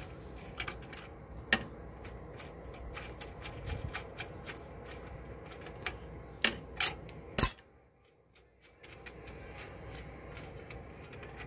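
Small steel bolts and lock plates on a clutch pressure plate's finger adjusters clicking and clinking as they are loosened and taken off by hand. One sharper metallic clink with a brief ring comes about seven and a half seconds in.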